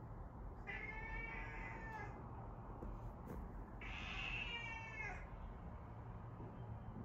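Domestic cat meowing twice: two drawn-out meows, each a little over a second long, about three seconds apart.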